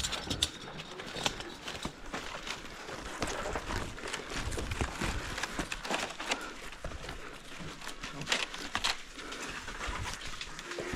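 Irregular rustling, scraping and small knocks of gloved hands, rope and palm fronds close to a helmet-mounted camera, as a climber works a rope around the top of a palm trunk.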